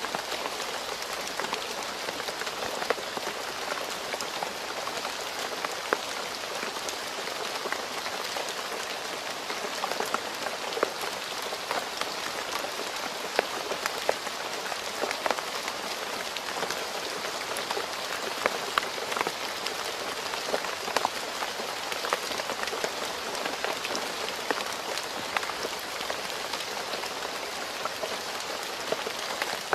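Steady rain falling on a road: a dense, even hiss of rain with frequent sharp taps of individual drops hitting close by.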